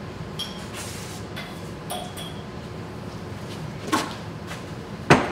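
Steel tools and parts on a milling-machine vise giving a few light metallic clinks and knocks, some briefly ringing, with a louder knock about four seconds in and a sharp click near the end.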